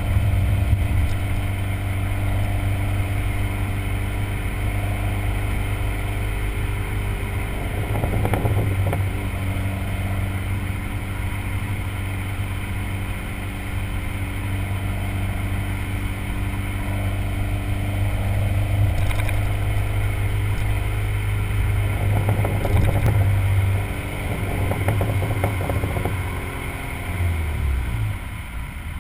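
Dodge SRT-4's Stage 1 tuned turbocharged 2.4-litre four-cylinder, on its stock exhaust, running at steady revs. Spells of exhaust crackling come about eight seconds in and again from about twenty-two to twenty-six seconds. Near the end the engine note falls as the revs drop.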